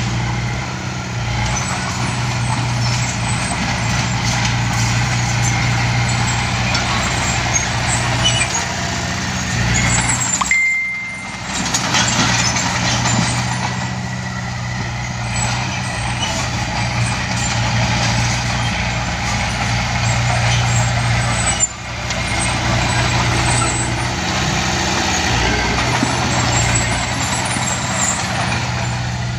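Small crawler bulldozer's diesel engine running steadily as the machine pushes loose soil with its blade. The sound dips briefly twice, near the middle and about two-thirds of the way through.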